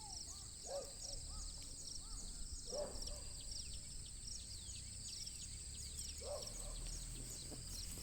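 Insects chirping in a steady, high, pulsing chorus, with several short rising-and-falling bird calls over it and a faint low rumble.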